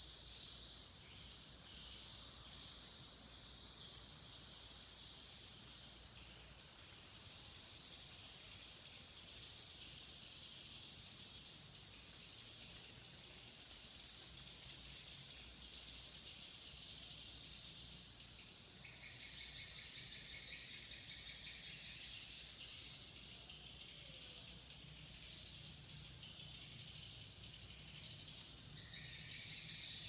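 Steady high-pitched insect chorus of crickets or cicadas, growing louder about halfway through, with a second, lower buzzing chorus joining a few seconds later and again near the end.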